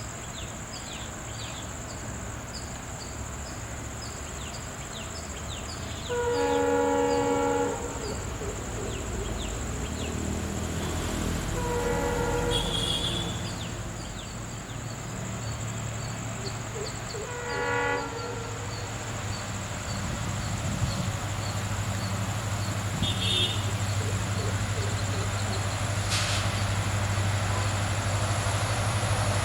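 EMD WDP-4 diesel locomotive sounding its horn three times: a long, loud first blast, then two shorter ones about five and eleven seconds later. Its engine drone grows steadily louder through the second half as it draws closer.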